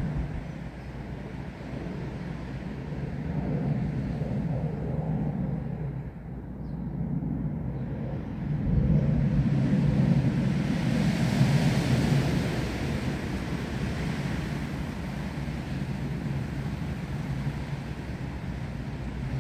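Wind gusting through trees, a low rumbling rush that swells and eases, growing louder about nine seconds in with a higher hiss of stirring leaves for a few seconds.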